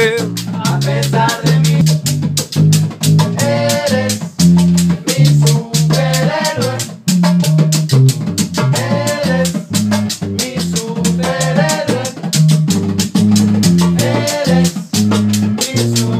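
Rehearsal band playing a cumbia groove: an electric bass line, hand drums and other percussion keeping a busy steady beat, and voices singing short background-chorus phrases every few seconds.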